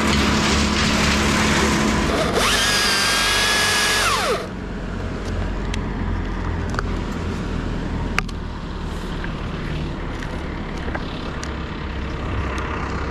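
Husqvarna T540i battery chainsaw cutting, then running free with a high whine that falls away sharply about four seconds in as the trigger is released. After that a lower, steady engine hum carries on, with one sharp click about eight seconds in.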